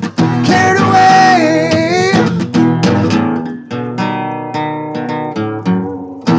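Acoustic guitar strumming the closing chords of a song, with strokes repeating at an even pace. A wavering held note sounds over the strums for about a second and a half near the start.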